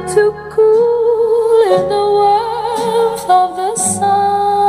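Slow ballad music played back through a Sun Audio SV-2A3 2A3 vacuum-tube amplifier and bookshelf speakers as a test after repair: a held melody line with vibrato over sustained chords.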